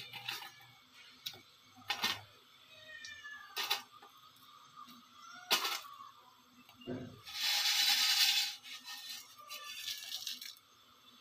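Dry instant-noodle cake pieces going into simmering liquid in a nonstick kadhai, with several sharp knocks of a steel plate and utensils against the pan. The loudest part is about a second of hissing rustle, some seven seconds in.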